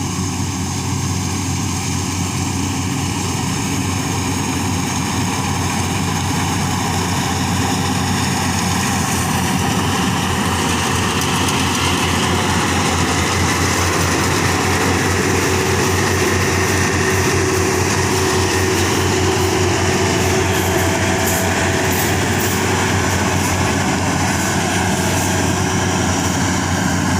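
Combine harvester running steadily: a loud, continuous mechanical drone with a rapid even pulse, its higher-pitched whine growing stronger about a third of the way through.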